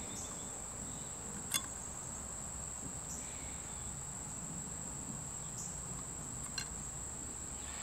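Two small sharp clicks, about a second and a half in and again near the end, as arrow components are handled on a digital pocket scale, over a constant high-pitched whine.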